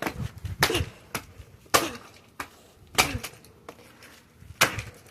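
Repeated hard blows on a battery-powered toy puppy being smashed: four loud impacts a second or more apart, with lighter knocks between them.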